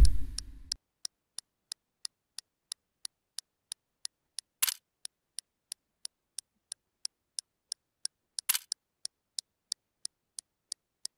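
A fast, even clock-ticking sound effect, about three ticks a second, with two sharper clicks near the middle. A loud low thud with a brief hum sounds at the very start.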